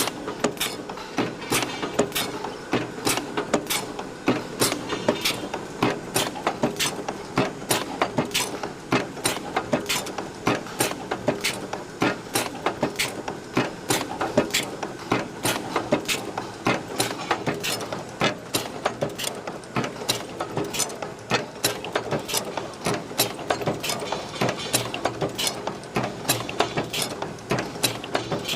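Automatic chain-making machine running, its mechanism clicking and knocking at a steady rhythm of about two strokes a second.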